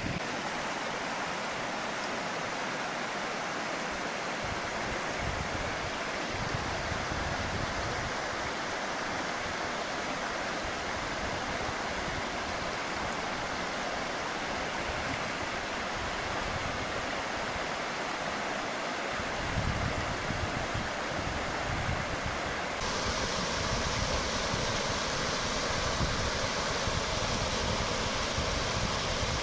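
Fátyol waterfall's water cascading down its limestone tufa steps: a steady rushing noise. About twenty seconds in, a low rumble joins it.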